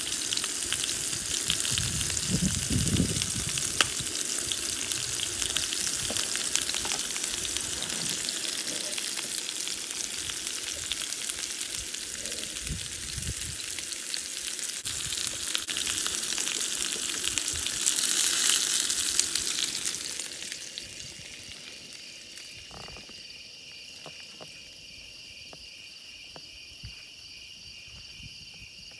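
Marinated chicken pieces frying on a ribbed grill plate: a dense, steady sizzle that swells briefly and then falls away about twenty seconds in. After that, crickets chirp in steady pulsing trills.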